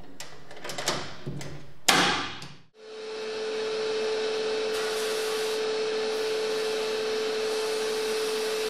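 Metal latches clicking and the door of a sandblast cabinet shutting with a knock. About three seconds in, the cabinet starts running with a steady hiss and an even hum.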